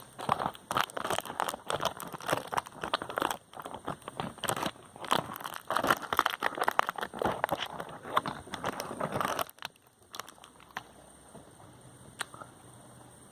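Plastic candy wrapper being crinkled and handled: a dense run of rapid crackles that stops about nine and a half seconds in, followed by a single click a little later.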